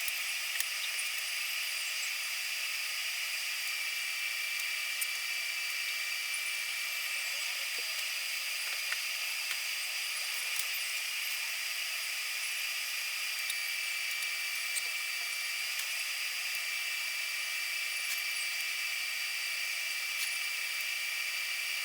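Welding arc hissing steadily with a few faint crackles as a steel angle bracket is welded on; the sound starts and stops abruptly.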